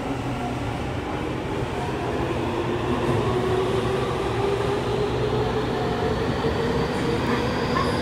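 Tokyu 5080 series subway car heard from inside, pulling away and accelerating: a steady rumble of wheels on rail under a traction-motor whine that rises steadily in pitch.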